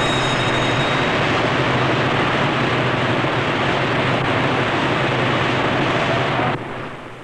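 Newspaper rotary presses running at full speed: a loud, dense, steady mechanical din with a low hum underneath. It drops off sharply about six and a half seconds in.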